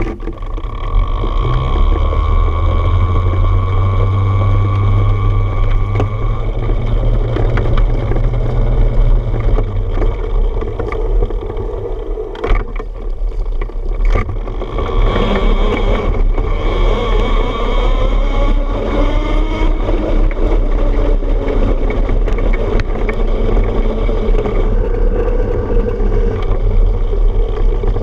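Electric trike on the move: steady rolling noise from its wheels, first over a wooden boardwalk and then on gravel, with a whine from the electric motor. The whine rises and falls in pitch around the middle, and a heavy low rumble in the first third gives way to a lighter, even noise.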